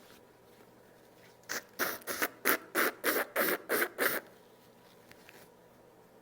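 A person blowing their nose in a quick series of about nine short, forceful blows, roughly three a second, that stop after about three seconds.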